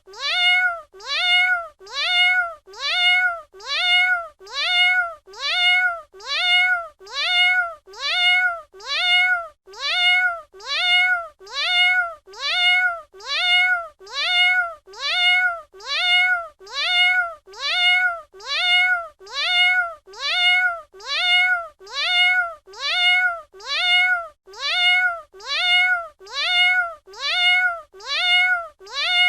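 A domestic cat's meow, the same short call repeated evenly about once a second, each one rising and then falling in pitch, like a single recording played on a loop.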